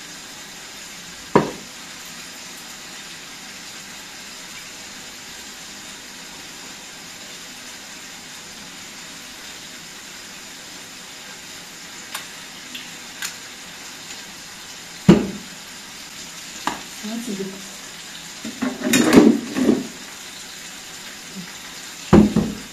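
Food sizzling steadily in a frying pan on a stovetop. Over it come a few sharp knocks and clatters of a spoon and bowls, busiest near the end.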